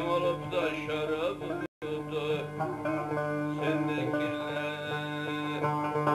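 Turkish folk song played on bağlama and cümbüş, plucked and strummed, with a man singing over them. The sound cuts out completely for an instant just under two seconds in.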